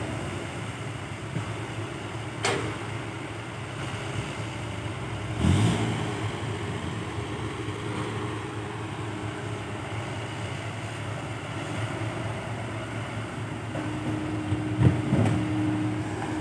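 Tracked hydraulic excavator running steadily while it loads soil into a six-wheel dump truck, its engine droning, with a few sharp knocks from the bucket and dumped soil, about 2.5 s, 5.5 s and 15 s in.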